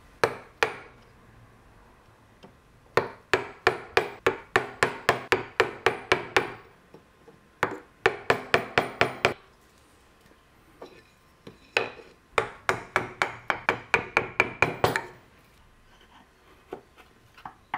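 Wood chisel driven into hardwood with quick, light hammer taps, in runs of about eight to fourteen strikes at three or four a second with short pauses between, chopping across a scribed line for a joint shoulder.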